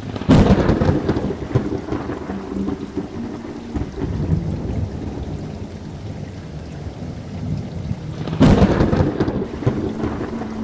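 Thunderstorm sound effect: two loud thunderclaps, one just after the start and one near the end, each rolling off over a couple of seconds, over steady rain.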